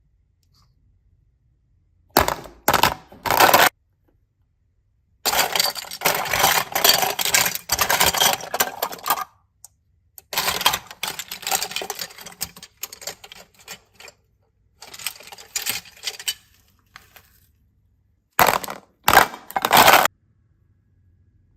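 Slime being squeezed and poked by hand: crackly, clicking squishes in five bursts with silence between.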